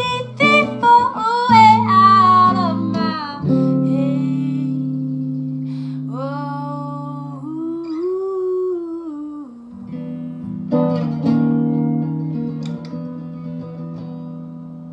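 A woman singing with a Les Paul-style electric guitar. The closing chords are left to ring and fade away, with one more short sung phrase in the middle and a last chord struck about ten seconds in that slowly dies out.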